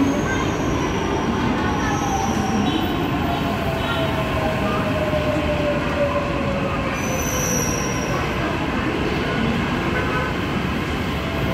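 Mumbai Metro train pulling into the platform: steady running noise with a whine that falls steadily in pitch as it slows to a stop.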